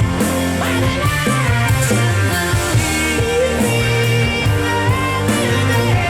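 Rock music played back through hi-fi loudspeakers, with a sustained, wavering lead line over a steady beat.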